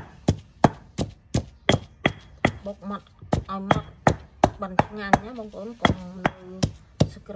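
Stone pestle pounding a green herb paste in a heavy stone mortar: sharp strokes in a steady rhythm of about three a second.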